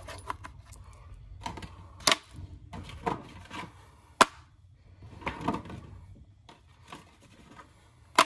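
Small tools and metal items clicking and clacking as they are handled and set into a plastic tool bin, with two sharper clacks about two and four seconds in and softer rattling between.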